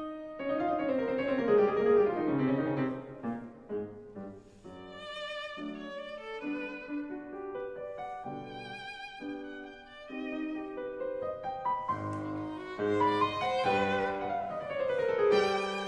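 Instrumental music, a violin with vibrato over piano and low strings, starting suddenly, with falling runs of notes.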